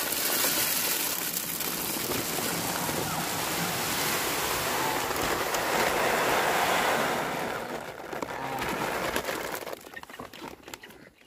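Dry poultry feed pouring from a bag into the plastic fill tube of a chicken feeder: a steady rushing hiss that fades and stops about ten seconds in.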